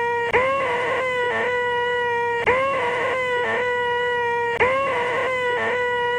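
A man's voice holding a loud, nasal 'eeeeeh' on one steady pitch: the 'most annoying sound in the world'. It runs as a loop, breaking off with a click and starting again about every two seconds, three times here.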